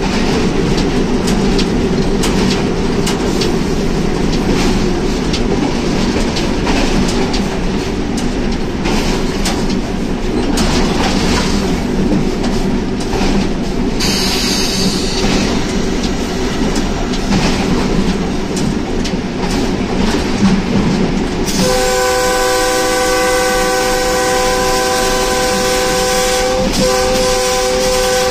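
Diesel locomotive running, heard from inside its cab: a steady engine and running rumble with wheels clicking over the rail joints. About three-quarters of the way through, the locomotive's horn sounds a long chord-like blast lasting about six seconds, broken briefly near the end.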